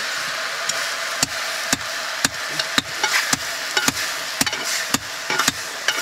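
Metal spoon stirring food in a blackened pot, knocking against the pot about twice a second, over the steady sizzle of frying.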